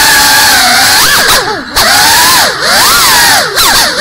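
GEPRC CineLog35 cinewhoop FPV drone's ducted props and brushless motors whining, heard close from the onboard camera. The pitch swoops up and down as the throttle changes, with short throttle cuts and dips in level about one and a half, two and a half and three and a half seconds in.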